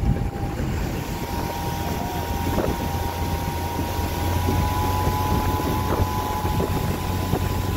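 Motorboat engine running steadily under way, a low drone with a faint steady whine above it, over the rush of water and wind buffeting the microphone.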